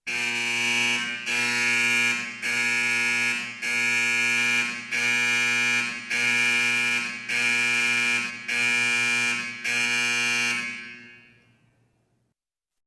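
Electric alarm buzzer sounding a series of about nine harsh, buzzy blasts, each about a second long with short breaks between them. It stops near the end and fades out with a short ringing tail.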